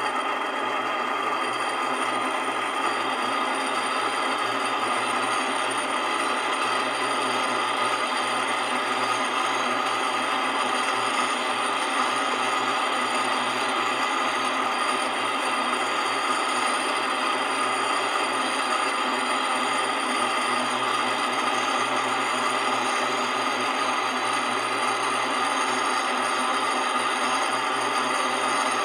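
Mueller laundry spin dryer running steadily, an even whirr with several steady high tones over it. By its noise the repairer puts the fault down to a motor bearing rather than a bushing.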